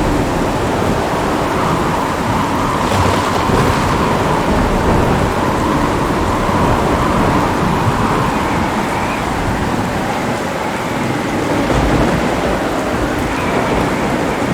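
Heavy rain pouring steadily, with a low rolling rumble of thunder beneath it and no sharp thunderclap.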